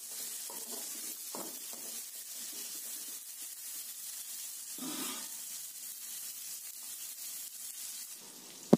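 Sliced bitter gourd, onion and tomato sizzling as they fry in an aluminium kadai, with a steel spoon scraping through them now and then and a sharp knock near the end.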